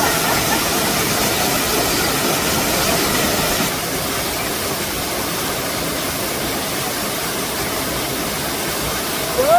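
Waterfall rushing: a steady, loud hiss of falling water, dipping slightly a few seconds in.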